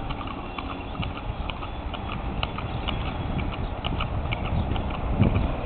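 Horse hooves clip-clopping in an irregular run of sharp clicks, several a second, over a steady low rumble.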